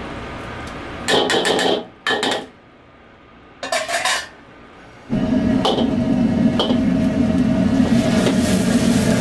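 A metal ladle clatters against an iron wok in quick bursts of strikes as minced garlic goes into the sauce. About five seconds in, the gas wok burner comes up to a loud steady roar under the wok as it is tossed over the flame, with a couple of ladle knocks on top.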